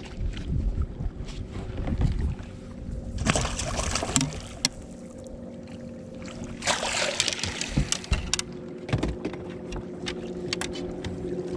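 A hooked smallmouth bass splashing at the surface as it is brought to the boat, two splashes about three and seven seconds in, over a steady low hum and rumble with scattered clicks from handling.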